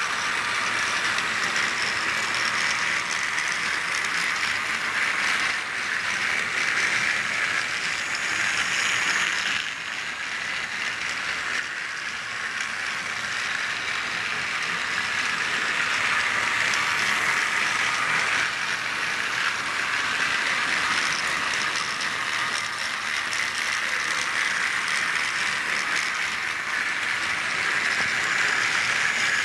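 Battery-powered TrackMaster motorized toy engines running on plastic track, their small electric motors and plastic gear trains giving a steady, high gear whir that dips slightly about ten seconds in.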